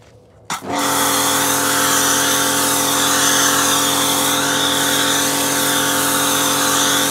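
Pressure washer running with an MTM foam cannon, spraying snow foam onto a car wheel. It starts abruptly about half a second in and gives a loud, even spraying hiss over a steady machine hum.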